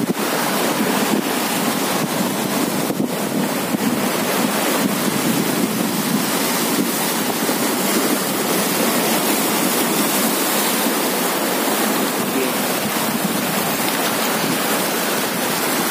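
Steady sea surf washing on the shore, mixed with wind noise on the microphone: an even, unbroken rushing hiss.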